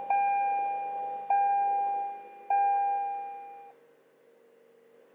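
A 2019 Toyota RAV4's dashboard warning chime dings three times, about 1.2 seconds apart, each ding ringing out before the next. It stops about three and a half seconds in as the car finishes powering on.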